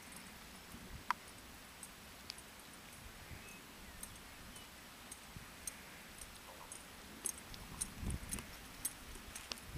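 Faint hoofbeats of a ridden horse loping on soft arena dirt, with light clicks and jingles from the tack. The thuds grow louder near the end.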